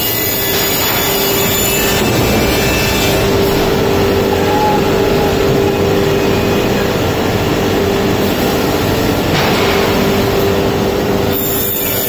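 Saw-blade paper tube cutting machine running: a steady machine noise with a constant hum-like tone. About nine seconds in, a harsher hiss rises for about two seconds.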